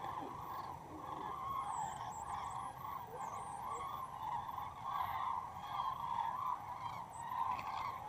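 A large flock of migrating birds flying overhead, calling continuously with many honking calls overlapping into a steady clamour. Fainter high whistles from other birds come through about two to three seconds in.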